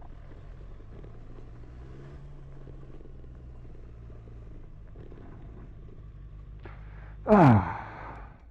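Motorcycle engine running at a low, steady speed on a gravel track. About seven seconds in, a loud sound sweeps steeply down in pitch over about half a second.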